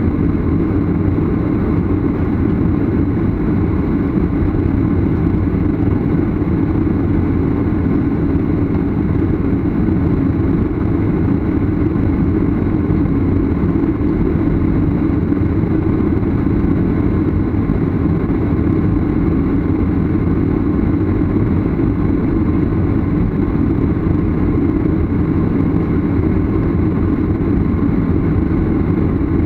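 Steady jet-engine rumble and hum heard inside the cabin of a Boeing 737 airliner as it taxis on the runway before take-off.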